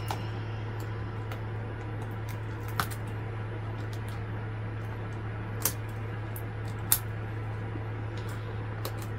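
A few short, sharp clicks from hands handling a thin cured UV-resin shell studded with glass gems, about four spread through, over a steady low hum.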